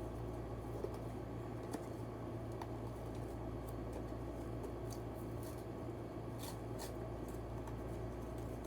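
Faint rustling and scattered light clicks of a small speed-cube box and its packaging being pulled open by hand, over a steady low hum.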